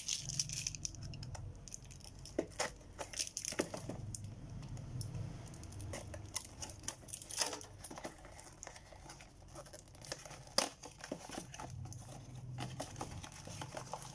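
Handling noise from Beyblade packaging: cardboard, paper and plastic rustling and crinkling in irregular bursts, with light taps and one sharper click about ten seconds in.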